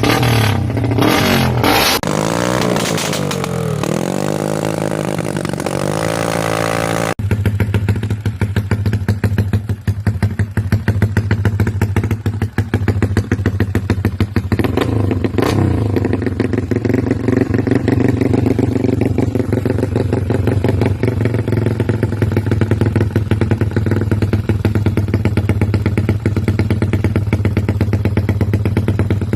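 Honda XRM 125 single-cylinder motorcycle engine with a 4-valve head and a loud Manoch Thailand aftermarket exhaust pipe, revving up and down repeatedly. It then idles with a fast, even exhaust beat, with one short blip of the throttle about halfway through.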